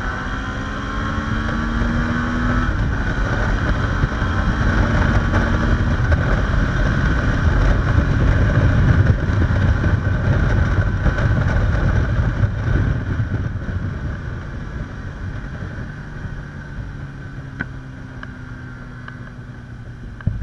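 Suzuki V-Strom 650 XT's V-twin engine accelerating hard through the gears, with two upshifts in the first three seconds. Then wind rushing over the microphone takes over at speed, loudest in the middle and easing off toward the end as the engine settles to a steady low hum.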